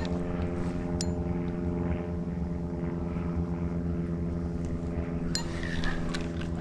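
An engine running steadily at a constant pitch, an even drone with no rise or fall, with two light clicks about a second in and again near the end.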